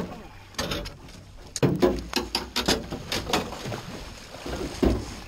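Large hooked fish thrashing at the surface right beside the boat's hull: a rapid run of loud splashes starting about one and a half seconds in, and one more splash near the end.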